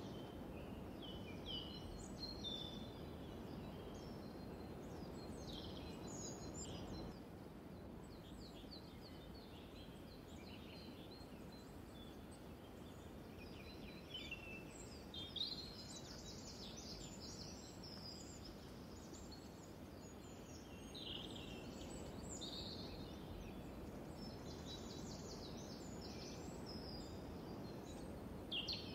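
Small birds chirping and trilling on and off, high and brief, over a steady low background noise.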